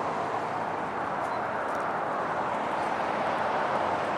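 Steady outdoor background noise, an even hiss-like rumble with no distinct events.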